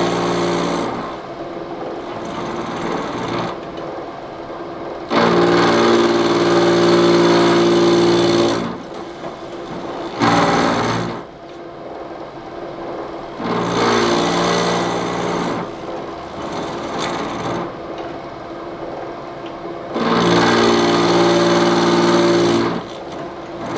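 Milling machine spindle running and drilling out a broken M16 steel stud. A steady machine whine and cutting noise swell louder several times as the drill bites into the metal, easing off in between.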